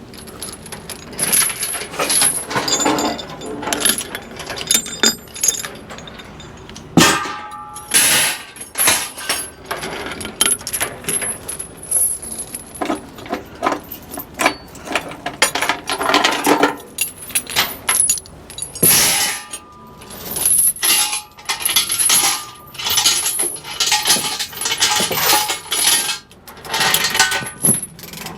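Steel tie-down chains clinking and clanking in irregular bursts as they are unhooked and dragged off a hauling trailer, freeing the load for offloading.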